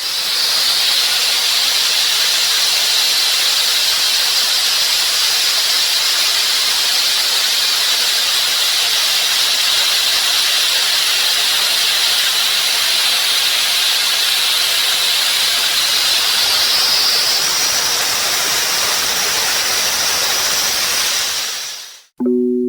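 5-axis CNC milling machine cutting: a high spindle whine over a loud steady hiss. The whine steps up a little in pitch about two-thirds of the way through, and the sound cuts off suddenly near the end.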